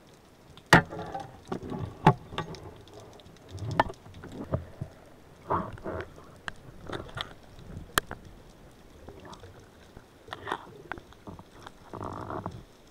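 Underwater handling noise from the spearfishing gear: an irregular run of clicks and knocks, a few of them sharp and loud, as heard through an underwater camera mounted on the speargun.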